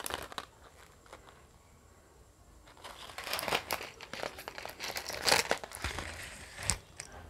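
Jewellery packaging crinkling as it is handled, starting about three seconds in with a run of crackles and a sharp one near the end.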